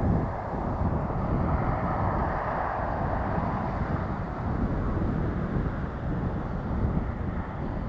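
Jet airliner engine noise, a rushing sound that swells during the first few seconds and then slowly fades, over low, gusty wind rumble on the microphone.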